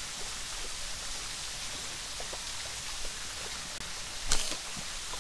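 Steady outdoor hiss, then about four seconds in a single short sharp snap as a fish slingshot's rubber bands are released to fire a shot at a fish in the water.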